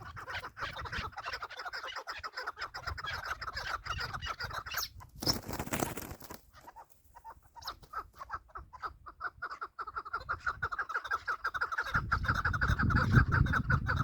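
Chukar partridges calling: long runs of rapid, repeated clucking notes. About five seconds in, a brief burst of noise cuts across the calls, and a low rumble rises underneath near the end.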